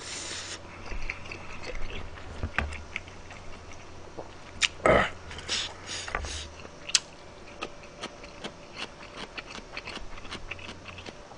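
A person chewing food close to the microphone, with wet mouth clicks and many short, sharp taps. There is a louder short burst about five seconds in.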